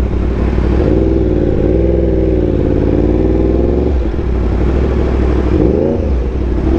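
Yamaha R1M's crossplane inline-four through an SC Project exhaust, running under way at fairly steady revs with rushing wind noise. The engine note drops briefly about four seconds in, and the revs rise quickly near six seconds.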